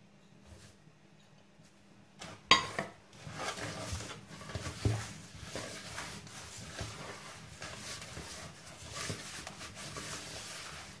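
Butter and sugar being mixed by hand in a large bowl: a single knock about two and a half seconds in, then steady rubbing and scraping as the hand works the mixture.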